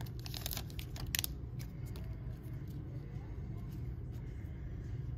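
A few crinkles of a trading-card pack's foil wrapper in the first second or so, then a faint steady low hum with a few light ticks.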